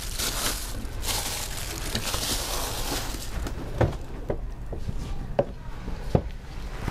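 Kitchen work noise: a steady hiss for about the first three seconds, then a few sharp knocks and taps as the steel bowl of marinated pork is handled.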